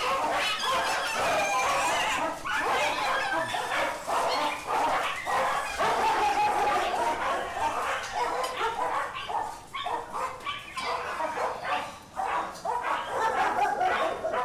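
Many dogs barking and yipping over one another without a break, very noisy.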